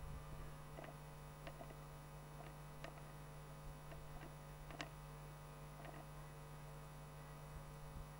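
Faint steady electrical hum with a few soft clicks at irregular intervals.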